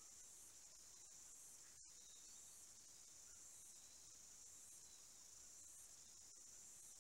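Faint insect chorus: a steady high shrilling that swells and eases about once a second. It cuts out for a moment about two seconds in.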